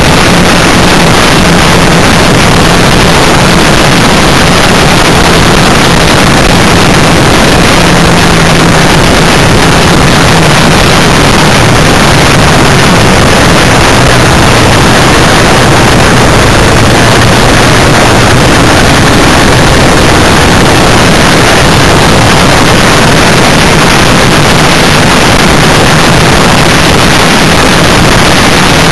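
A vehicle engine running steadily while on the move, buried under loud, overloaded wind rush on the microphone; the engine's pitch sags a little partway through and then rises again.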